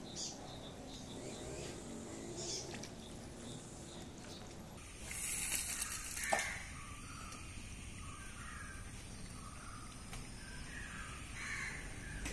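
Birds cawing now and then over an open-air background. About five seconds in there is a short hiss, ending in one sharp knock.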